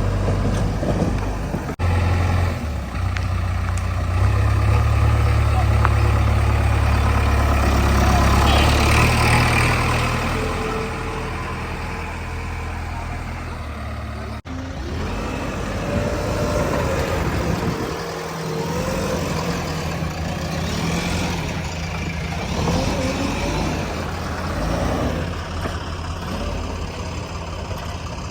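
Heavy diesel engines of a JCB 3DX backhoe loader and a tractor running, with a loud deep rumble for several seconds in the first half before the engine noise drops to a steadier, quieter running.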